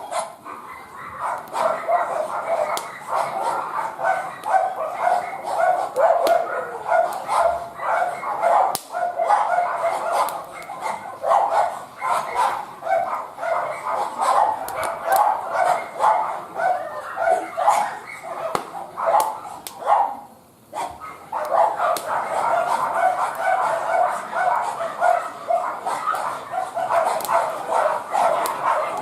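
A dog barking and yipping over and over with hardly a break, pausing briefly about two-thirds of the way through, with sharp clicks mixed in.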